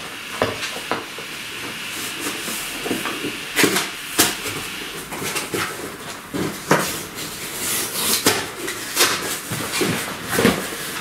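Irregular knocks, clatter and rustling over a steady hiss, more frequent from about three and a half seconds in: someone moving about and handling objects.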